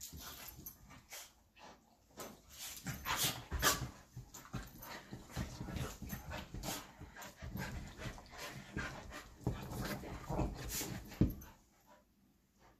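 Two small dogs play-fighting on couch cushions: scuffling and panting in quick irregular bursts, which die away about eleven seconds in.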